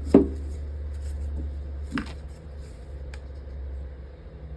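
Two sharp knocks of hard objects being handled, about two seconds apart, then a fainter click, over a steady low hum.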